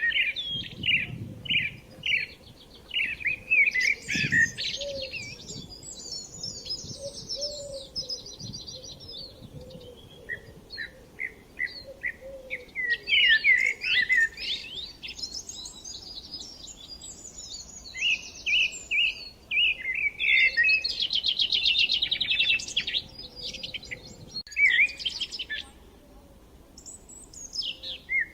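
Several songbirds singing together, with overlapping phrases of chirps, whistles and fast trills that come in bursts with short lulls between them.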